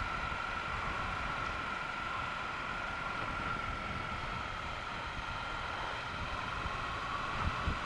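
Triumph Bonneville T120 motorcycle cruising at a steady speed: its parallel-twin engine running under steady wind and road noise. A few low thuds come near the end.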